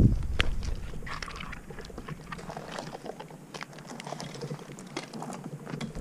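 Close-up scraping, rubbing and small clicks as a tree climber's gloved hands, rope and gear work against rough walnut bark, with a low rumble of wind on the microphone that fades just after the start.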